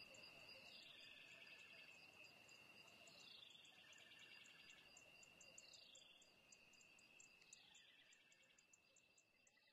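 Near silence: a faint steady high-pitched tone with quick light ticking and a short falling sweep about every two and a half seconds, fading out near the end.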